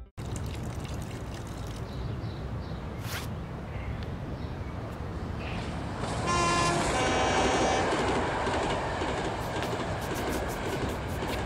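Outdoor traffic ambience, a steady rumble of vehicles, with a vehicle horn sounding twice about six to eight seconds in.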